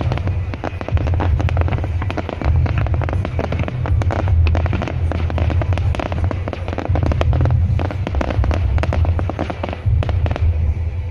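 Aerial fireworks bursting: dense, rapid crackling from many small bursts over a deep rumble, the crackling dying away near the end.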